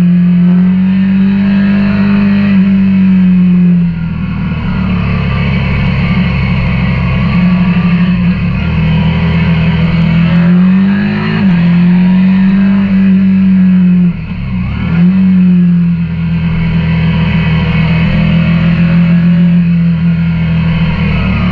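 KTM 890 Duke R's parallel-twin engine running under load, heard onboard. It holds steady revs and briefly drops and climbs again about 4, 11 and 14 seconds in.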